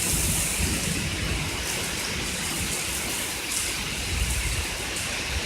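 Heavy rain pouring down steadily, sheeting off a roof and overflowing the rain gutters.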